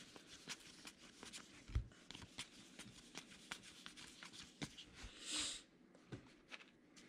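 Gypsy Queen baseball trading cards being flipped through by hand: a faint, irregular string of small clicks and rustles as cards slide off one another, with a soft thump about two seconds in and a short hiss around five seconds in.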